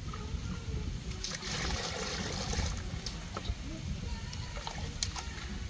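Water splashing and trickling for about a second and a half while a freshly gutted carp is rinsed over a basin, followed by a few sharp clicks and taps.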